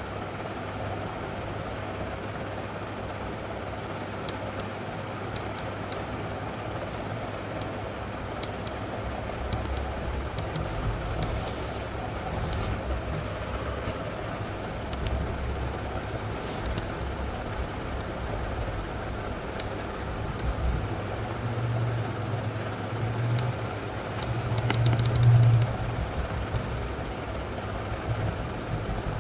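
Computer mouse clicking now and then over a steady background hum, with a low rumble that swells a few seconds before the end.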